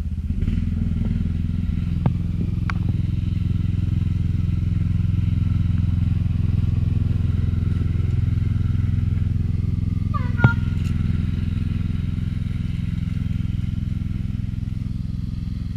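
A steady low mechanical drone, with a few sharp clicks about two and three seconds in and a louder click with a brief chirp about ten and a half seconds in.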